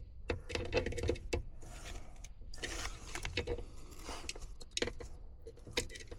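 Irregular light clicks, taps and small rattles of hand work at an electrical panel, as multimeter probes are set against the terminals of a breaker that reads zero volts and is being tested as faulty.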